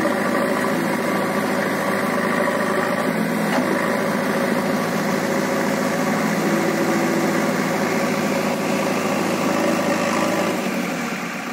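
JCB 3DX backhoe loader's diesel engine running steadily as the machine works its backhoe arm and loader bucket against the ground to climb out of a low spot. The engine eases off slightly near the end.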